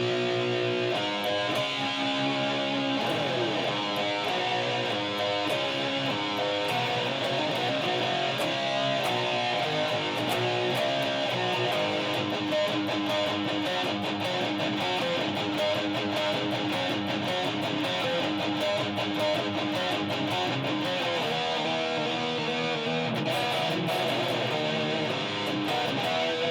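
Guitar playing a medley of heavy metal and rock riffs, the notes changing continuously at a steady level.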